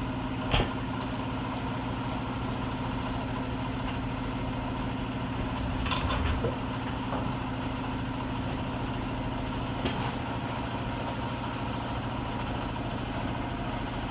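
An engine idling steadily, with a few short clicks and knocks from work going on around it.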